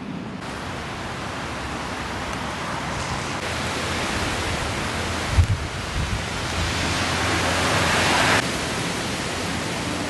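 Strong wind and heavy rain: a loud, even rushing noise that builds, then drops off suddenly about eight seconds in. Low buffeting thumps from the wind on the microphone come about five seconds in.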